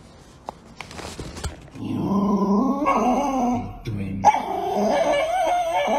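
A few soft clicks of a cardboard box being handled, then a small dog whines loudly in two long, wavering stretches with a brief break between them.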